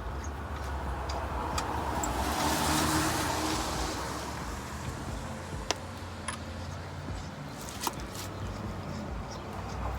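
A vehicle passing by, its noise swelling to a peak and fading over a few seconds, over a steady low rumble; two sharp clicks come later.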